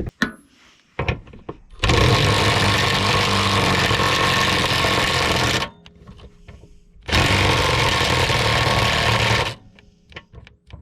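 Milwaukee cordless impact wrench hammering on a rusted subframe bolt in two long bursts, the first about four seconds, the second about two and a half. Small knocks and clicks come between the bursts.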